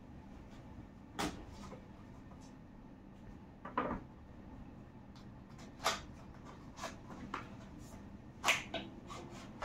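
Small cardboard retail box being handled and opened by hand: scattered taps, scrapes and rustles of the packaging, with a handful of short sharp clicks, the loudest about eight and a half seconds in.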